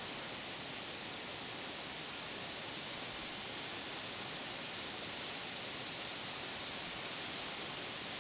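Rushing water: a steady, even hiss with no breaks, typical of a stream running high.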